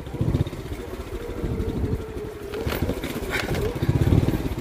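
Motorbike engine running steadily while riding a rough dirt track, with a few brief knocks near the middle.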